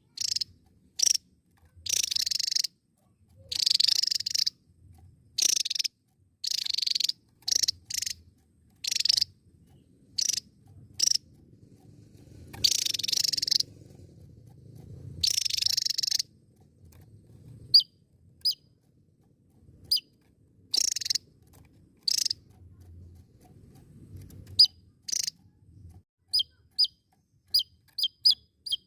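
Javan tesia singing: a string of short, harsh, buzzy notes, then, about two-thirds of the way in, a series of brief thin notes that each drop in pitch, repeated quickly near the end.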